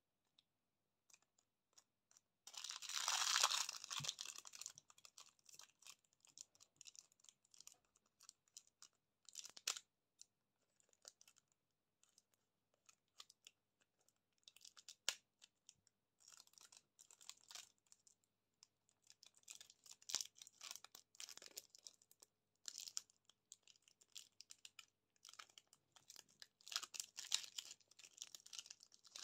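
Clear plastic candy wrapper being cut with scissors and peeled off a jelly sweet on a stick: irregular bursts of crinkling and rustling, loudest a few seconds in, with a single sharp snip partway through.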